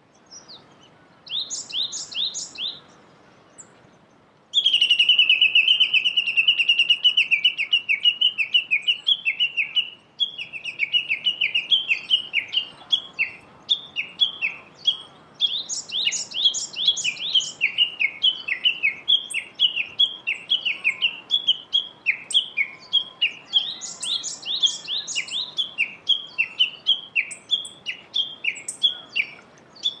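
Japanese bush warbler (uguisu) calling: a long, unbroken run of short repeated notes, about three a second, that starts suddenly about four and a half seconds in, with a few higher, quicker bird notes over it now and then.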